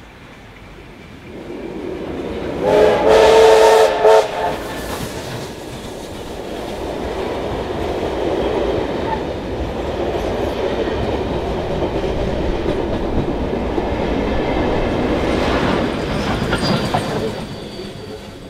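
NSWGR 32 class steam locomotive 3237 passes close by and gives a loud whistle blast about three seconds in, lasting over a second. Its carriages then rumble past with wheels clattering over the rails, and the sound fades near the end.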